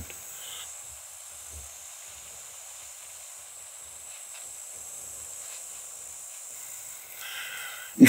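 Quiet outdoor garden ambience: a steady high hiss with a few faint short sounds, and a brief slightly louder patch near the end.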